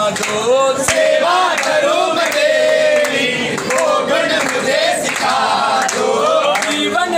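A group of men singing a Hindu devotional bhajan together in chorus, with hand claps keeping time.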